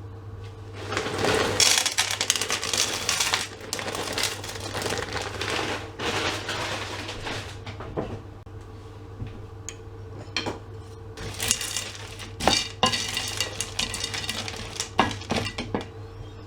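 Chopped onions going into a hot frying pan and being stirred, with a utensil scraping and clinking against the pan in several spells and a few sharp knocks.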